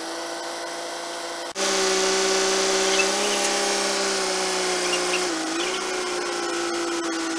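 Truck-mounted knuckle-boom crane running under load while lifting, a steady mechanical whine. It turns suddenly louder about a second and a half in, and its pitch dips briefly about five seconds in.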